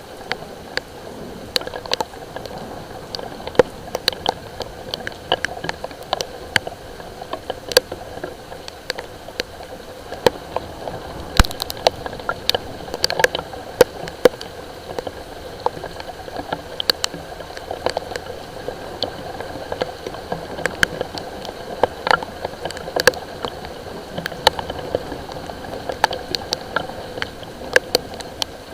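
Light rain falling: a steady hiss with scattered drops ticking irregularly, several a second, against a nearby hard surface.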